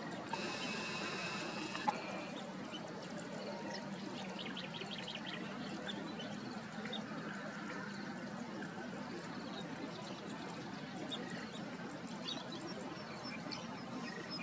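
Outdoor wetland ambience: a steady background rush with scattered small bird chirps. A high, even-pitched call is held for about a second and a half near the start, and a quick run of high ticks follows a few seconds in.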